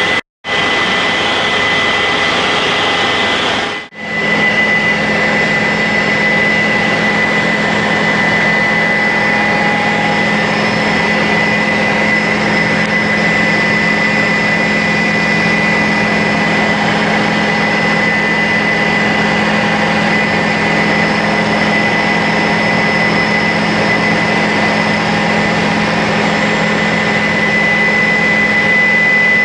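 Helicopter cabin noise in flight: the engine and rotor make a loud, steady drone with a steady high whine. The sound cuts out briefly twice in the first four seconds, and a lower hum joins after the second break.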